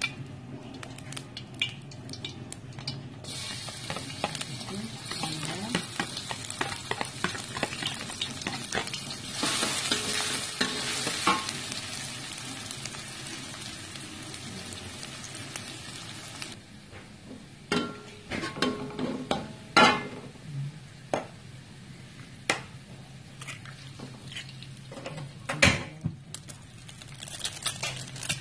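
Minced garlic and shallots sizzling in hot oil in a wok, stirred with a metal spatula that scrapes and clinks against the pan. The sizzle swells a few seconds in, thins out about two-thirds through, and sharp spatula knocks stand out in the last part.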